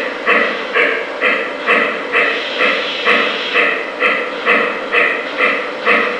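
O gauge Shay steam locomotive model's sound system chuffing steadily, about two chuffs a second, as the engine runs along the track.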